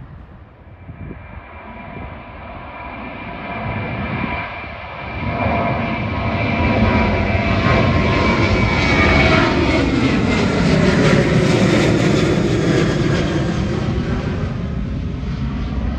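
Jet engines of a Boeing 737 airliner climbing out after take-off. The noise builds over the first several seconds, peaks as the aircraft passes overhead with a whine that slides down in pitch, then eases slightly.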